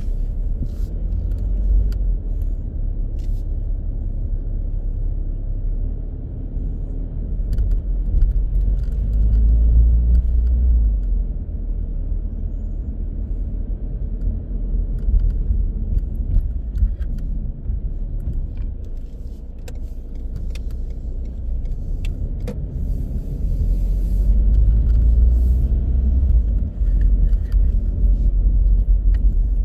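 Car driving through city streets: a steady low rumble of road and engine noise that swells louder twice, with scattered small clicks and rattles.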